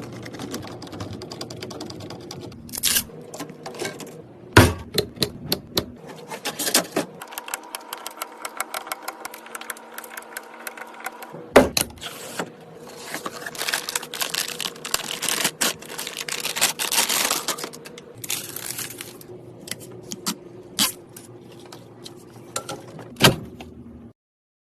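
Clicks, taps and light clatter of computer parts being handled and fitted together, with a few louder knocks. The sound is cut into several short takes and stops abruptly near the end.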